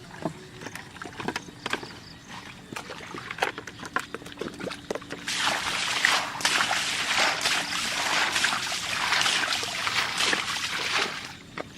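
Water splashing and pouring, loud for about six seconds from roughly five seconds in, after a few light splashes and knocks.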